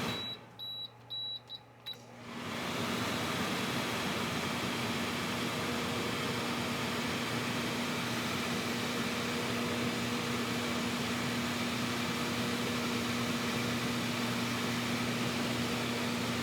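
Microwave oven keypad beeping several times as it is set, then the oven starting up and running with a steady hum.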